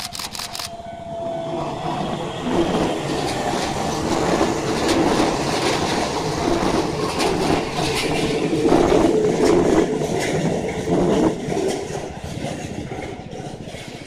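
Keisei 3600-series four-car electric train passing close by at a level crossing, its wheels clattering over the rails. The noise builds, is loudest about two-thirds of the way through, then fades as the train pulls away.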